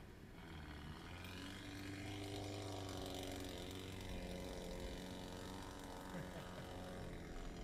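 Jeep Grand Cherokee ZJ's engine running at low revs while the vehicle crawls downhill over gravel, heard from inside the cab as a steady hum whose pitch wavers slightly.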